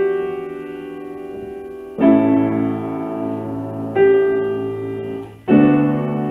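Piano playing slow chords, a new chord struck about every two seconds and left to ring out and fade.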